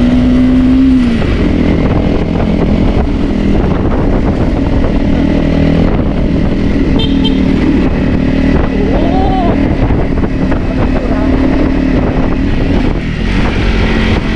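Off-road dirt bike engine running steadily under load as it carries a rider and a pillion passenger up a rough mountain track. The engine note drops about a second in.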